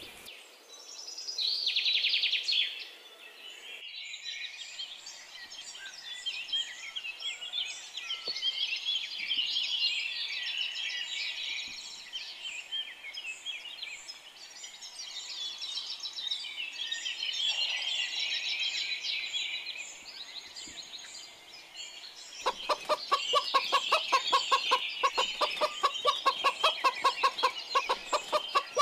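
Many small birds chirping together in a dense morning chorus. About 22 seconds in, a domestic fowl starts a loud, rapid call of evenly spaced pulses, several a second, over the birdsong.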